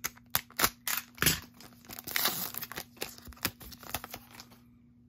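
Foil trading-card pack being slit with a box cutter and pulled open, the wrapper crinkling, with a string of sharp clicks and taps; it goes quiet near the end.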